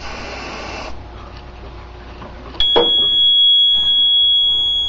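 A brief hiss of canned smoke-test aerosol sprayed at a smoke detector. About two and a half seconds in, the fire alarm panel goes straight into alarm with a steady, high-pitched tone that starts abruptly after a click and holds.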